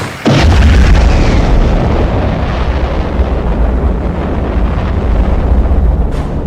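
Fireworks going off: a heavy boom about a third of a second in opens a dense, continuous low rumble of bursts, with sharp cracks near the end.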